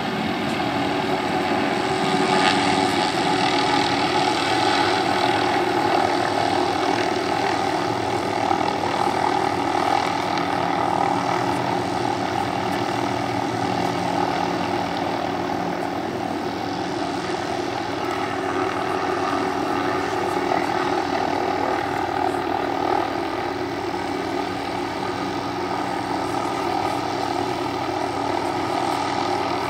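Helicopters in flight: a steady drone of rotor blades and turbine engines, a little louder in the first few seconds.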